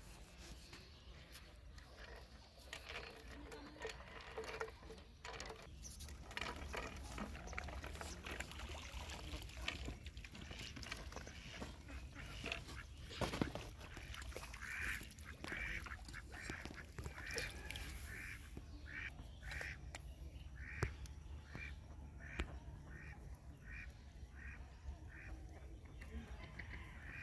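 A bird calling over and over, faint, in a run of short calls that settles to about two a second through the second half. Two sharp knocks stand out, one about halfway through and one a few seconds later.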